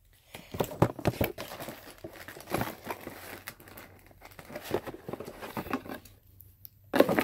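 Cardboard craft-kit box being handled and rummaged through, its packaging crinkling and rustling in irregular bursts, with a louder burst of handling noise near the end.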